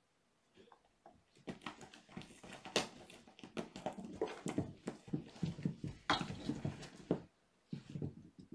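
Kittens running and jumping about on carpet and a carpeted cat tree: a dense, irregular run of paw thuds, scrabbling and scuffles from about a second in until about seven seconds, then a couple of short thumps near the end.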